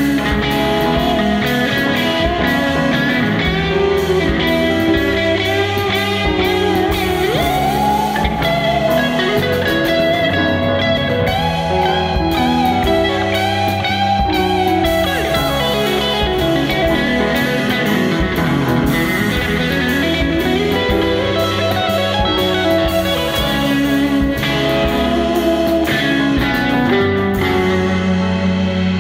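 Instrumental band music: an electric guitar plays a lead line with sliding, bending notes over bass guitar and keyboard.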